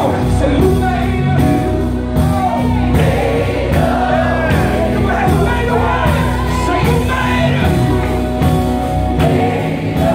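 Gospel vocal group singing live, a male lead over backing singers, with instrumental accompaniment keeping a steady beat.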